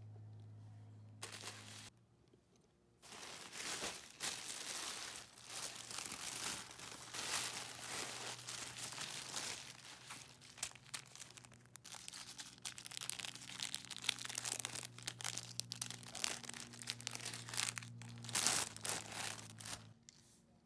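Close-up crinkling and rustling of a plastic mailer bag and tissue paper being opened and unwrapped by hand, starting about three seconds in and stopping just before the end.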